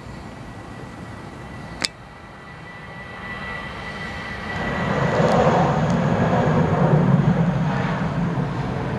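A distant engine drone that grows louder from about three seconds in and stays loud, with a single sharp click a little under two seconds in.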